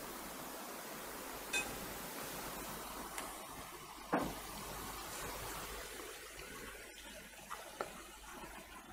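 Quiet room tone: a steady faint hiss with a few small knocks and clicks, the loudest about four seconds in.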